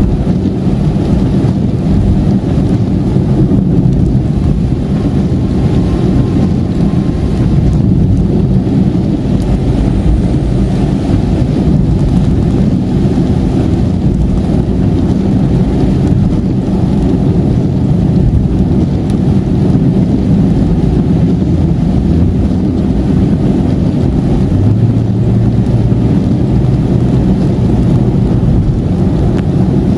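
Steady low rumble of a car driving at highway speed, heard from inside the cabin: engine drone mixed with tyre and road noise. Near the end a steadier low engine hum comes in.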